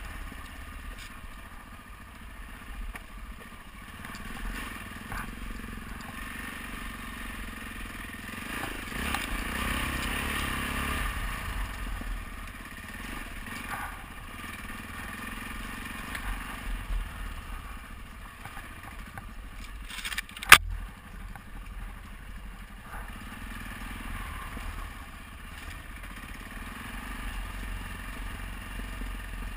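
Adventure motorcycle engine running as the bike is ridden over a rocky dirt track, with tyres crunching on gravel and the bike rattling. A single sharp knock about twenty seconds in is the loudest sound.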